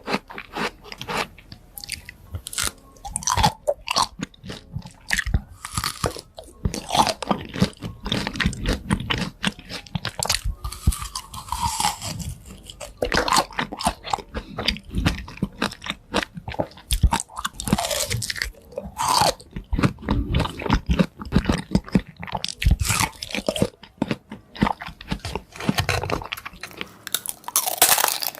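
Fresh fruit being bitten and chewed close to the microphone: a dense, irregular run of crisp crunches and wet chewing clicks.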